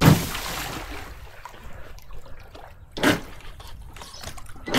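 An RC speedboat's hull splashing down into lake water, followed by water trickling and lapping around it. A second short burst comes about three seconds in.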